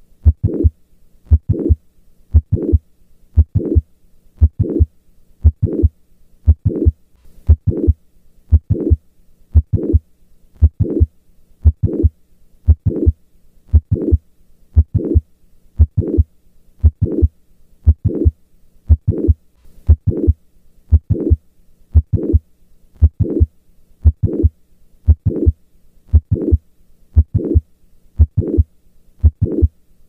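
Recorded heart sounds heard at the cardiac apex through a stethoscope, beating steadily at about one beat a second, each beat a short cluster of low thumps. The recording is of mitral valve prolapse, with a heart murmur.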